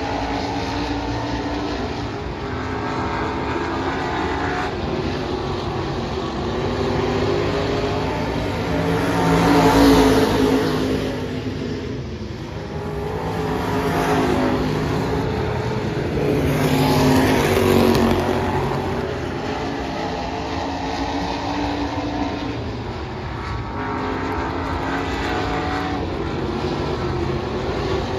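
USRA stock cars' V8 engines running laps on a dirt oval: a steady, layered engine drone from several cars that swells loudly twice as cars pass close, about ten seconds in and again just past halfway.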